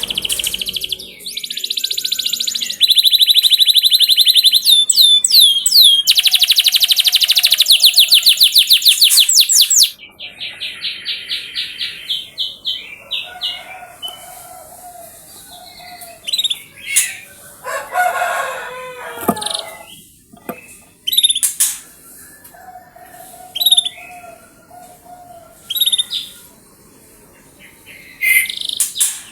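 Domestic canary song: loud, very fast high trills for about the first ten seconds, then quieter scattered chirps and short calls.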